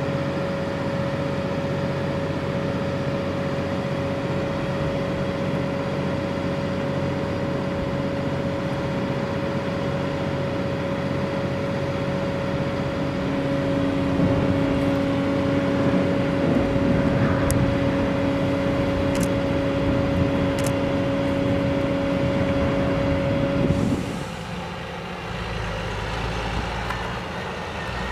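Sennebogen 830 material handler running, a steady machine noise with a constant whine. About halfway a lower hum joins and the sound grows louder; both stop together a few seconds before the end and the noise falls away.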